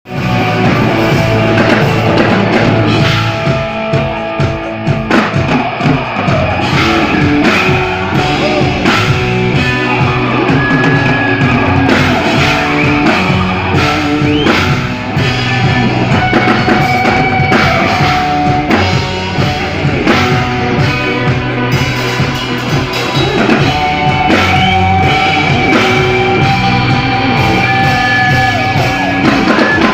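A rock band playing live at a sound check, with a drum kit keeping a steady beat under guitar and held melodic notes.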